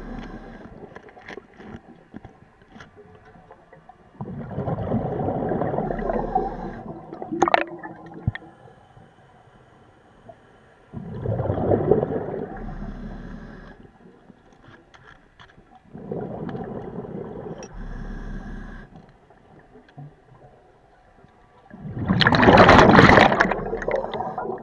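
Scuba diver breathing through a regulator underwater: four rounds of bubbling and gurgling about six seconds apart, with quieter pauses between, the last the loudest.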